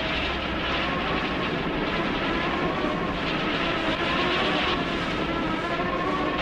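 Steady rushing noise, with faint music underneath.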